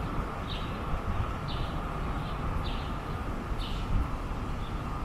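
Low steady rumble and hum of an electric light-rail train at the platform, with a bird giving short high chirps about once a second.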